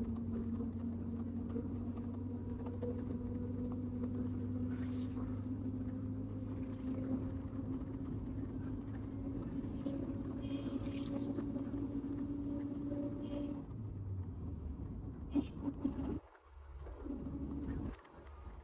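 Car engine and road noise heard from inside the moving car: a steady hum whose note rises slowly as the car gathers speed. About two-thirds of the way through the engine note drops away, and near the end the sound dips and cuts in and out.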